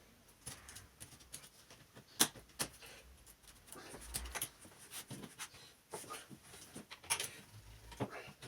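Irregular small clicks and short scrapes of a laptop's plastic case and parts being handled and worked with small tools, with a sharper click about two seconds in and another near the end.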